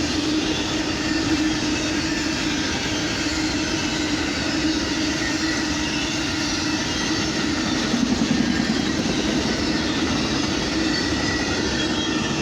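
Amtrak Auto Train's auto-carrier cars rolling past at speed: a steady rumble and rattle of steel wheels on rail, with faint thin squealing tones above it.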